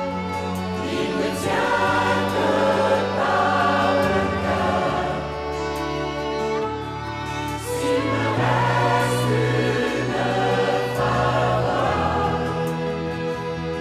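Mixed choir singing sustained chords, accompanied by a small string ensemble of violins and cello holding long low notes beneath the voices.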